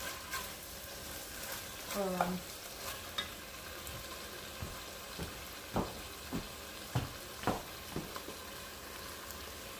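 Cubed pork sizzling and frying in an enameled cast-iron pot over a gas flame, stirred with a wooden spoon at first. In the second half come a series of light knocks and clicks.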